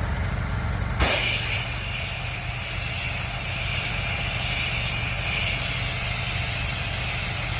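A spray nozzle opens about a second in and hisses steadily as cleaning chemical is sprayed under pressure. A pressure washer's engine runs steadily underneath.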